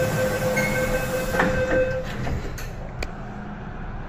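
MTR M-train electric multiple unit pulling out of a station: a steady electric whine from the traction equipment over the train's running noise, with a knock about a second and a half in. The whine stops about halfway through, leaving quieter running noise and a click.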